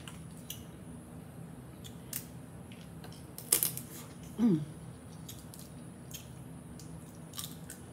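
Boiled crawfish shells cracking and snapping as they are peeled by hand: scattered crisp clicks, the loudest about three and a half seconds in. A brief falling hum from the eater comes about halfway through.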